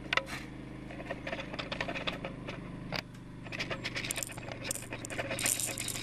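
Placer gold flakes and small nuggets poured from a plastic scoop into a plastic weighing dish on a digital scale, clicking and pattering as they land: a few single clicks at first, then a dense rattle from about halfway in. A steady low hum runs underneath.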